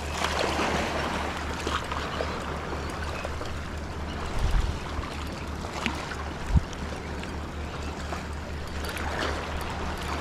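Sea water washing and lapping over shoreline rocks, with wind buffeting the microphone as a steady low rumble and a couple of dull thumps around the middle.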